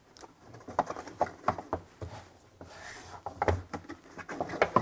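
Irregular clicks, taps and light rustles of a product box and its packaged contents being handled and opened.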